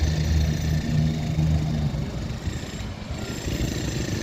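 Street traffic: a motor vehicle's engine running close by with a low hum, strongest for the first two seconds and then fading, over the steady noise of the avenue.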